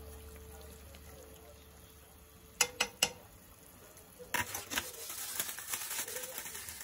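Three sharp clicks in quick succession, about two and a half seconds in, the loudest sounds here. Then an irregular crackling of a thin plastic bag as fresh ramen noodles are loosened inside it.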